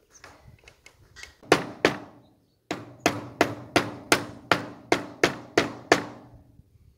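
A hammer driving nails into wooden fence parts: two blows, a short pause, then a steady run of about ten blows roughly three a second, each with a short ring.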